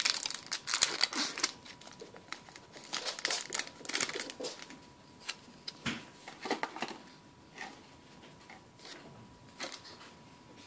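Foil Pokémon TCG booster pack wrapper (Plasma Freeze) crinkling and crackling as it is handled and opened by hand, thinning to a few light rustles near the end.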